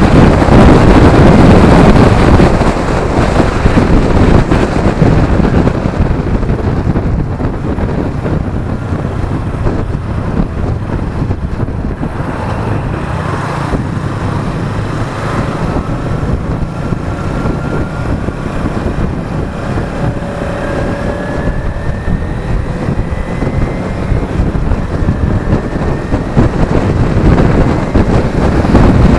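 Wind rushing over a camera on a moving sport motorcycle, mixed with the bike's engine and the road noise of traffic. The wind is loudest for the first couple of seconds, then eases, and faint rising whines come and go through the middle as the bike speeds up.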